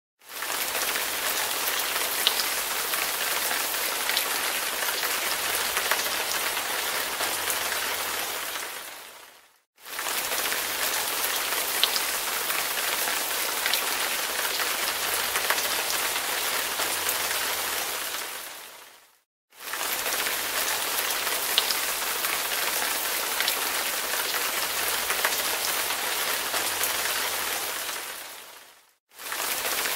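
Steady rain hiss with scattered drop ticks, from the same recording of about ten seconds played three times over: each pass fades out to silence and the next starts straight after.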